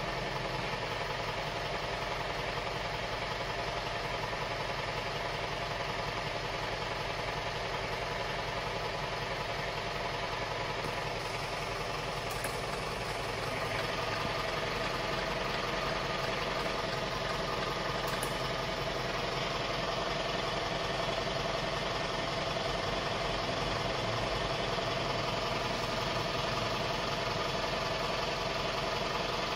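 Mitsubishi Fuso Canter's 4P10 four-cylinder diesel engine idling steadily, heard from inside the cab. It gets a little louder about halfway through.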